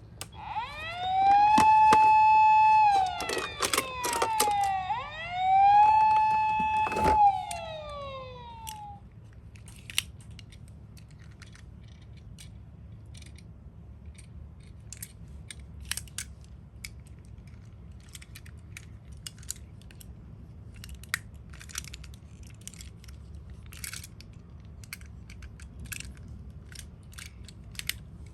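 Toy ambulance minicar's electronic siren sounding twice. Each time the pitch winds up, holds steady for a moment, then falls away. Sharp clicks come during the sirens, and after them only scattered light clicks and taps go on.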